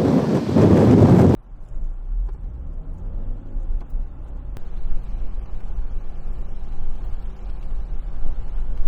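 Typhoon wind blasting across the microphone, cut off abruptly about a second in. A low, steady rumble follows, heard from inside a car.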